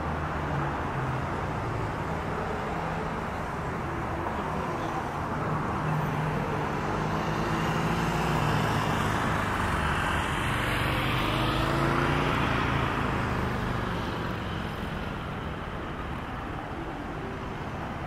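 Steady road traffic. One vehicle passes close by, growing louder towards the middle and fading away again.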